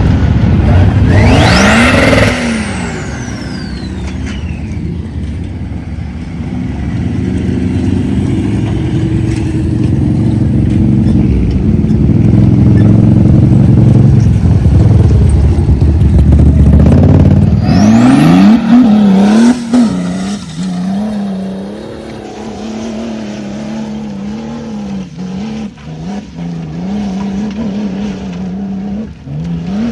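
Off-road vehicle engine climbing under heavy load: it revs up over the first two seconds, then runs hard and steady. From about eighteen seconds in, the engine is quieter and revs up and down again and again as the throttle is worked.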